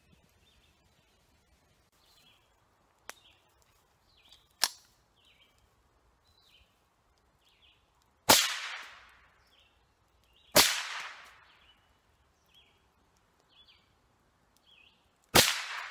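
Rifle fired three times from a bipod, about halfway through, again two seconds later and once more near the end, each shot a sharp crack with an echo trailing off for about a second. Two fainter clicks come before the shots, and a bird chirps over and over in the background.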